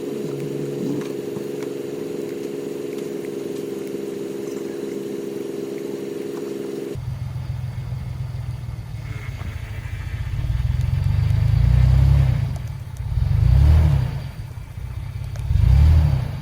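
A steady mechanical hum of several even tones runs for the first half and cuts off suddenly. A Ford F-150 pickup's engine then runs deep and low, revving up three times in the last few seconds as the truck works to move in the snow.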